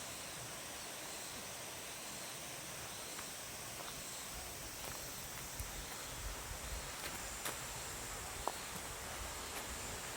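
Steady outdoor background hiss with faint high insect buzzing; from about four seconds in, soft footsteps and a few light knocks on a woodland trail.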